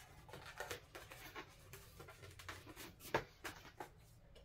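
Faint rubbing and small clicks of hands handling and twisting a latex 260 modelling balloon, with one sharper click about three seconds in.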